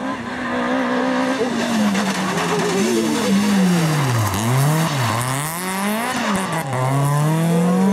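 Peugeot 206 rally car's engine revving hard through a corner, its pitch dropping and rising several times, then climbing steadily near the end as the car accelerates away.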